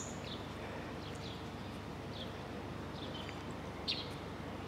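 Birds chirping outdoors: several short, high chirps at irregular intervals over a steady low background noise.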